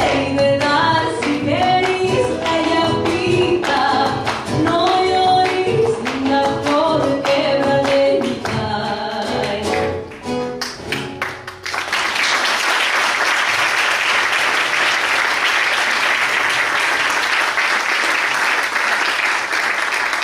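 A woman singing to her own classical guitar. The song ends about eleven and a half seconds in, and an audience breaks into steady applause.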